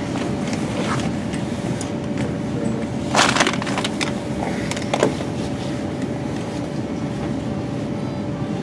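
Inside a Class 350 Desiro electric multiple unit running slowly: a steady rumble with a constant faint hum, broken by a cluster of sharp clacks from the wheels crossing the track about three seconds in and one more clack about five seconds in.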